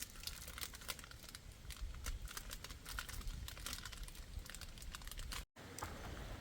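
Snack packaging crinkling and crackling in quick, irregular bursts, over a low rumble of wind on the microphone. The sound breaks off briefly near the end.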